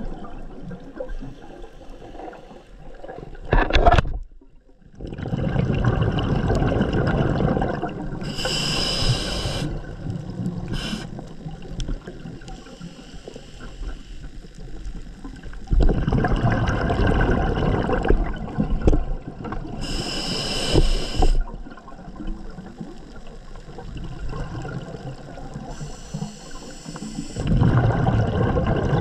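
Scuba diver breathing through a regulator underwater: a short hissing inhale followed by a longer, louder bubbling rush of exhaled air, about three breaths in all, one every ten seconds or so.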